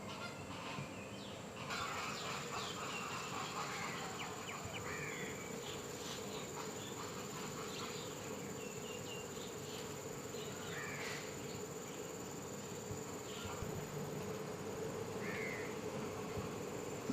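Steady insect buzzing with a constant high whine above it, and short chirps scattered through it.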